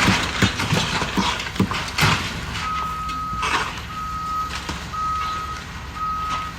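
Backup alarm on heavy demolition machinery beeping in a steady single tone about once a second, starting about two and a half seconds in. Before it, a run of sharp knocks and cracks.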